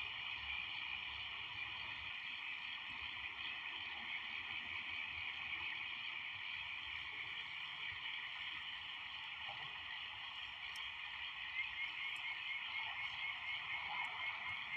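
A steady night chorus of frogs calling in a dense, continuous mass, with a run of quick repeated notes standing out near the end.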